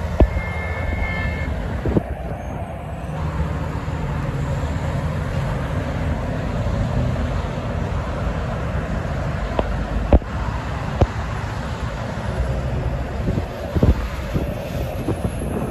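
Heavy highway traffic of diesel tractor-trailers, dump trucks and cars passing, a steady rumble of engines and tyres, with wind on the microphone and a few brief knocks.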